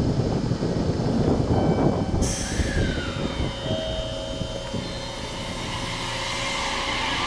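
Low wind and handling rumble on the microphone, then, after a cut about two seconds in, a Kyushu Railway electric train moving along the platform: rail rumble with the steady whine of its electric motors, one tone briefly falling in pitch.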